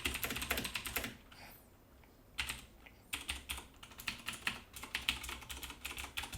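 Typing on a Razer BlackWidow Tournament Edition tenkeyless mechanical keyboard with clicky Cherry MX Blue switches: quick runs of sharp key clicks. The typing stops for about a second a little after the start, then goes on.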